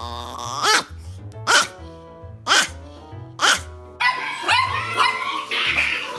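A dog barking four times, about a second apart, each bark dropping in pitch, over background music with a steady beat.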